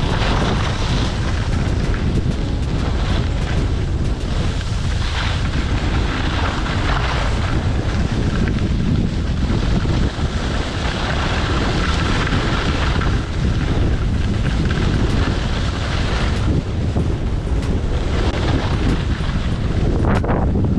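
Wind buffeting the microphone: a steady low rumble, with louder hissing gusts swelling and fading several times.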